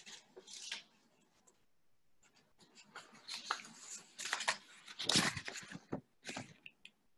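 Soft, irregular rustling and handling noises, a cluster of short scrapes and rustles in the middle with a low bump about five seconds in.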